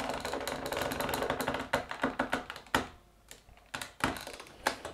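Plastic Play-Doh Perfect Pop Maker press creaking and clicking rapidly for about two seconds as its top button is pushed down, squeezing dough into the mold. This is followed by about six separate sharp plastic clicks as the mold halves are opened and the pop is pulled out.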